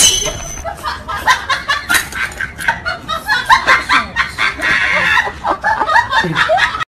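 People laughing in short snickering bursts, which cut off suddenly near the end.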